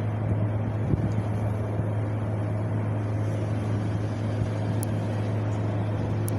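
Wind blowing steadily, with a brief gust about a second in and a steady low hum underneath.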